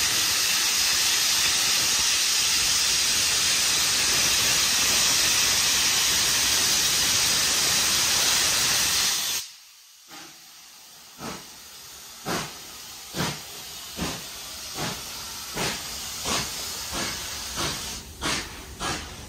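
Steam locomotive 3801 hissing loudly with escaping steam, which cuts off abruptly about halfway through. A couple of seconds later it starts to chuff, the exhaust beats coming about once a second and quickening as the locomotive gets under way.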